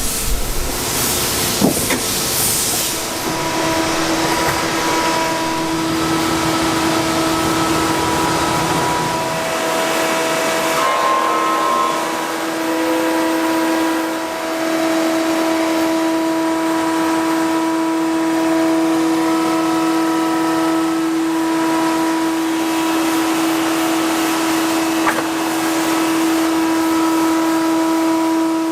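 Woodworking machinery running steadily with a whine that holds one pitch over a noisy hiss. A low rumble drops out about nine seconds in.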